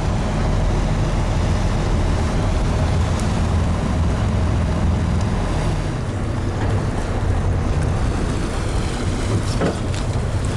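Fishing boat's engine running steadily under way, a low even hum, with wind and rushing water over it.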